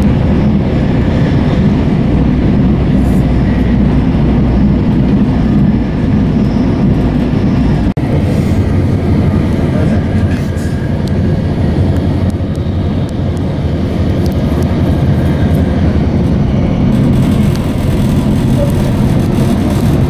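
Gautrain electric commuter train running at speed, heard from inside the carriage as a steady, loud, low running noise. There is a momentary dropout about eight seconds in.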